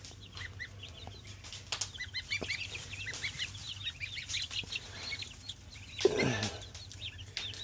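Chicks peeping over and over in short, high, rising chirps. About six seconds in, a larger bird gives one louder, lower call that falls in pitch.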